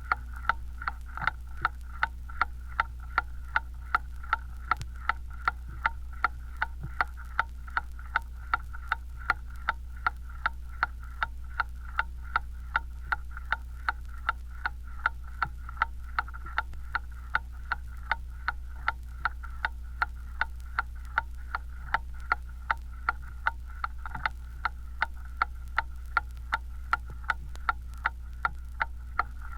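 Large mantle clock ticking at an even, steady pace, with a steady low hum underneath.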